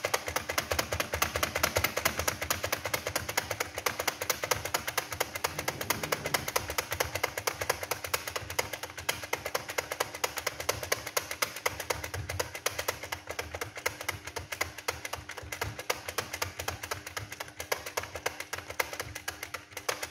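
Computer keyboard being typed on fast and steadily, one letter key and the space bar struck over and over, about ten keystrokes a second.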